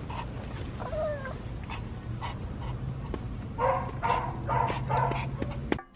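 Small dog whining with short high calls: one gliding call about a second in, then four quick calls in a row near the end.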